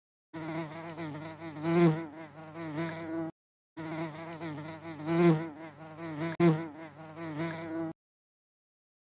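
Buzzing insect, heard twice: two stretches of about three and four seconds, separated by a short gap, the buzz wavering in pitch.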